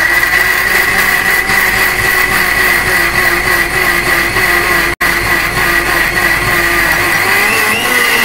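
Electric mixer grinder (mixie) running, blending chopped mango with a loud, steady whine. It breaks off for an instant about five seconds in, and its pitch rises a little near the end.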